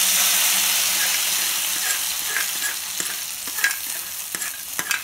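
Hot oil tempering of mustard seeds, cumin, shallots, curry leaves and dried chillies poured into wet cooked greens and dal, sizzling loudly and slowly dying down, with scattered sharp pops and crackles.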